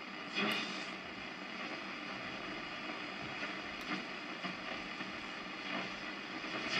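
Blaupunkt Derby 660 portable transistor radio hissing with static between stations while its tuning dial is turned, with a couple of short clicks.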